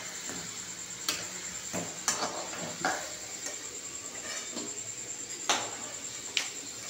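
A metal slotted spatula clinks against a metal kadai about five times as deep-fried pitha are lifted out of hot oil, over a steady sizzle of frying.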